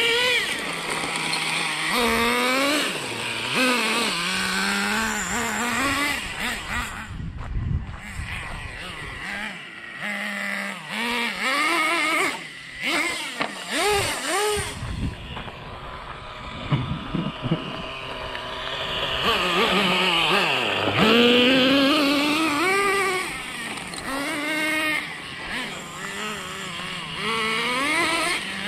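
Traxxas Slash RC truck's motor revving up and down over and over as it accelerates, slows and turns, with tyre noise on gravel; it briefly drops away twice about a third of the way in.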